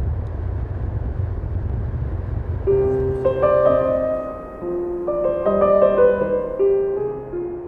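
A low rumble for the first few seconds, then slow background music enters about three seconds in: a piano melody of held notes.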